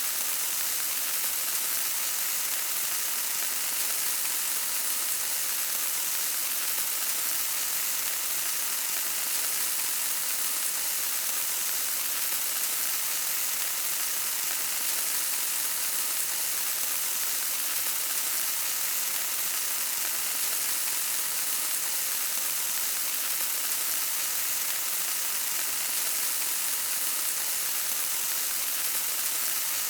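Oil sizzling in a frying pan: a steady, even crackling hiss with no break.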